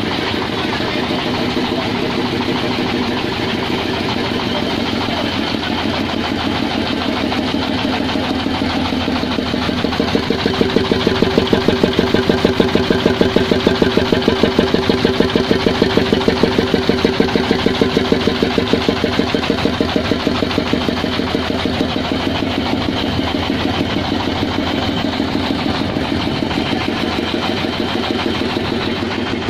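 Engine of a homemade grandong dump truck idling, a fast steady pulsing beat. It gets louder for about ten seconds in the middle, when the engine under the seat is heard up close.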